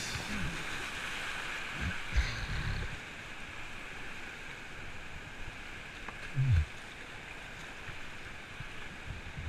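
Rushing whitewater of a river rapid heard from a kayak running it, a steady hiss of water, with a few dull low thumps; the loudest comes about six and a half seconds in.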